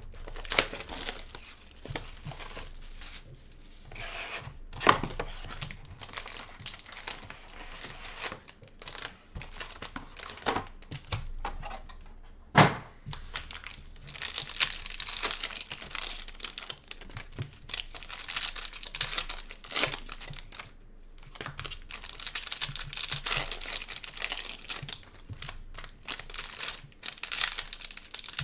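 2020 Panini Mosaic football hobby box and its foil-wrapped card packs being handled and torn open: crinkling and tearing wrappers with scattered sharp snaps, the loudest about halfway through.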